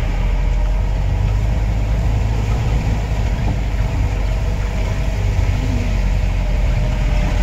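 Jeep engine running steadily as the vehicle drives slowly over a rough dirt track, heard from inside the cabin as a loud, even low rumble.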